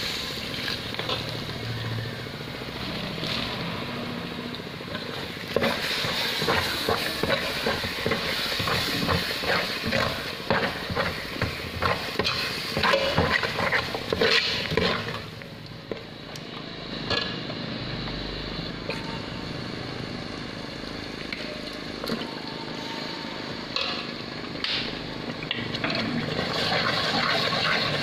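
A metal ladle stirring and scraping through red curry paste and coconut milk in a metal pot over heat, with a sizzle under it and many quick clicks of the ladle against the pot, busiest from about six to fifteen seconds in.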